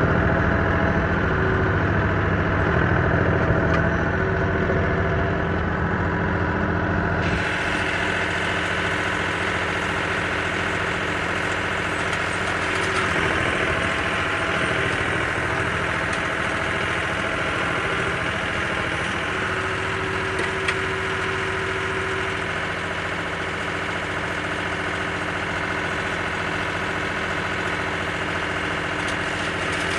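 Farm tractor engine running steadily, driving an Allis-Chalmers Roto-Baler through the hay.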